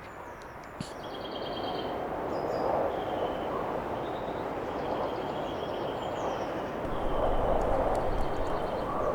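A steady rushing noise that swells twice, with birds trilling and chirping high above it.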